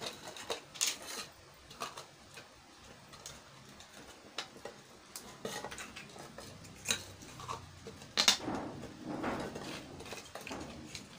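Small plastic cups and lids clicking and clattering as they are handled, capped and set down on a table, in irregular light knocks. A sharper knock about three quarters of the way through is followed briefly by rustling.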